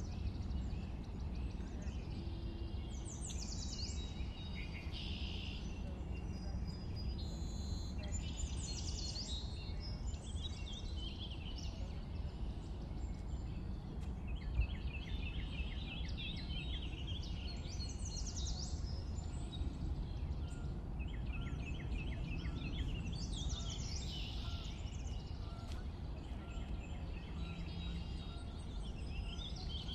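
Several birds chirping and calling, with rapid chattering trills about halfway through and again a few seconds later, over a steady low rumble.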